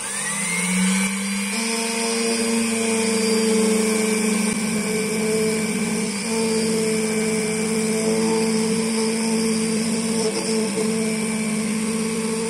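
Motor of an electronic key-cutting machine spinning up with a rising whine over the first second, then running steadily as the cutter mills a brass Fiat car key blank, cutting the second side of the blade.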